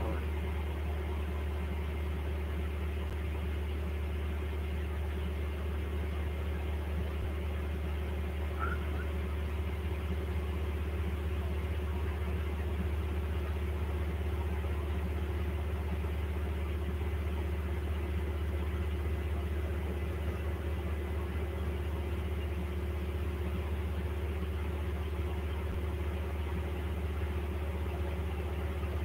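A steady low machine hum with a faint, thin high tone above it, unchanging throughout.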